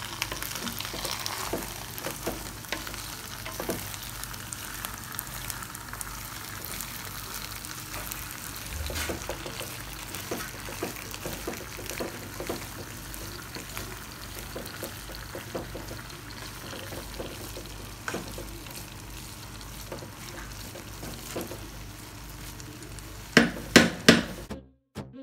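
Wooden spoon stirring and scraping jollof rice around a non-stick pan while the rice sizzles steadily on the heat, the sauce almost cooked away. A few louder knocks come near the end.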